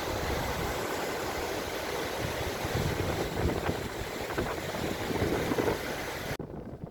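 Wind rushing over the microphone with steady sea and ship noise underneath, a dense rumbling hiss that cuts off suddenly about six seconds in.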